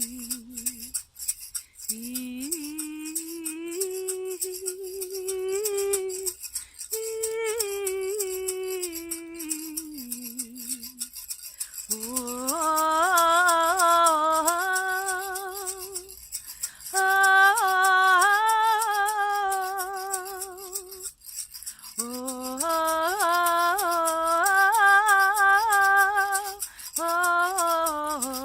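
A woman's intuitive, wordless singing: long held notes with vibrato in phrases of several seconds with short breaths between, louder from about halfway through. A shaken rattle keeps up a steady fast rhythm underneath.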